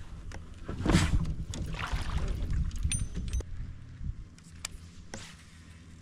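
Plastic sit-on-top kayak being boarded and pushed off from a weedy bank: a heavy thump about a second in, then the hull scraping and rustling through grass and shallow water, dying down after about four seconds into a few sharp clicks.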